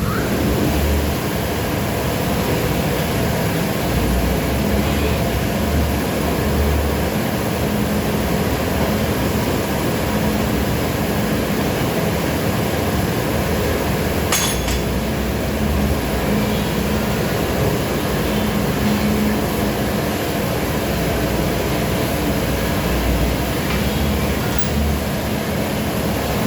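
Steady low mechanical rumble, with a single sharp click about fourteen seconds in.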